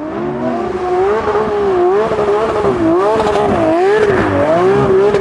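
Lamborghini Aventador's V12 engine running under throttle as the car drifts on a wet track, its note rising and falling about once a second.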